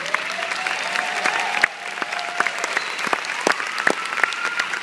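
Audience applauding, with many sharp nearby claps. Over it come long drawn-out cheers that rise in pitch.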